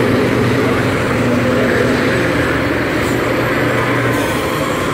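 Several school bus engines running hard as the buses race around the track, blending into a steady, loud wash of engine noise.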